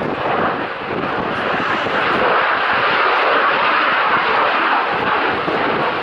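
F-16 fighter jet's engine noise as it flies a display pass: a loud, rough, continuous jet rush that swells a little in the middle and eases slightly near the end.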